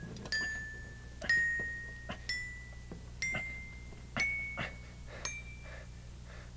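Bell-like mallet percussion, like a glockenspiel, playing single struck notes about once a second. There are six notes in all, each a little higher than the one before, so the line climbs slowly. Soft knocks come between the notes.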